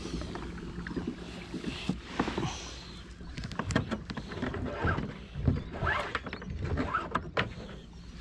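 Hobie pedal kayak under way on calm water: water swishing along the hull, with scattered knocks and creaks from the hull and pedal drive.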